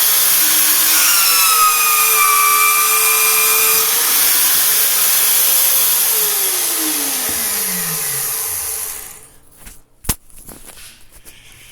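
Evolution magnetic-base drill with a 5/8-inch bit cutting through half-inch steel plate, running loud and steady with a high whine that wavers in pitch. From about six seconds in a tone falls steadily in pitch, and the drill noise stops about nine seconds in, followed by a single sharp click.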